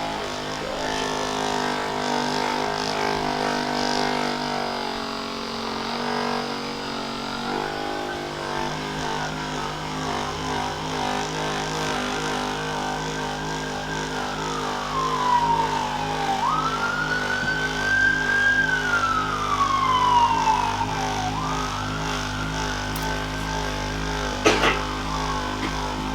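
Handheld electric massager running with a steady motor hum. Its whine sinks slowly in pitch and then jumps back up, several times, as it is pressed into the muscle and eased off. A sharp click comes near the end.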